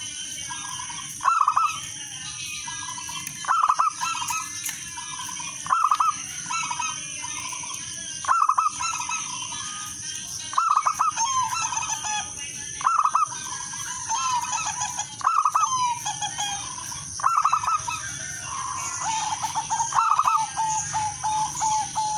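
Zebra doves (perkutut) cooing. A bright phrase of rapid, rolling staccato coos repeats about every two seconds, with softer cooing between the phrases.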